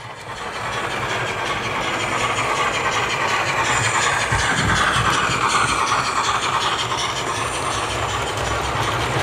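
H0-scale model of a class 50 steam locomotive and its coaches running past on the track: a steady rolling rumble and whir that grows louder as the train draws close about halfway through. A faint tone drops in pitch as it goes by.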